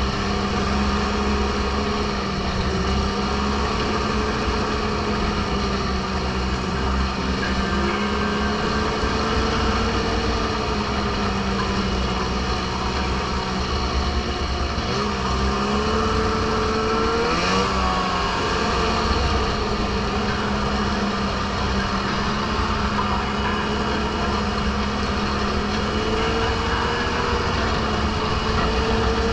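Snowmobile engine running at trail speed. Its pitch wavers with the throttle, dips briefly about halfway through and then climbs back.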